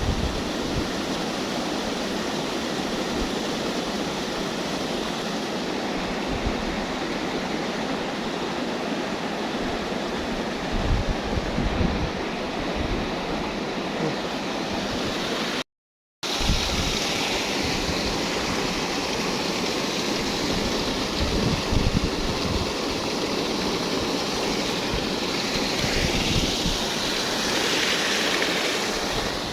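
Steady rush of wind and water outdoors, with wind buffeting the microphone in irregular low rumbles. The sound cuts out completely for about half a second midway.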